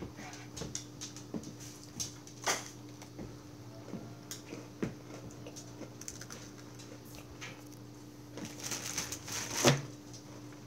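A child biting and chewing an Oreo cookie: scattered small crunches and clicks over a steady low hum, with a louder cluster of crackles ending in a knock near the end.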